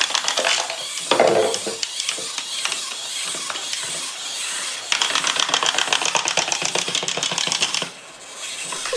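Clockwork wind-up toys running on a tabletop: the rapid, even clicking of their spring-driven gear trains, in two spells with a quieter stretch between. A short louder sound comes about a second in.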